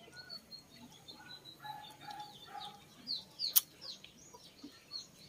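Birds calling: short clucking notes and a run of quick falling chirps, with one sharp click about three and a half seconds in.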